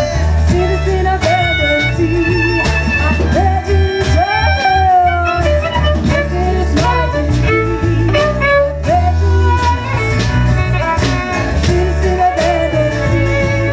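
Live folk-roots band playing: acoustic guitar, electric bass, violin and drums, with a woman singing over them. A strong bass line and regular drum hits run under the sung melody.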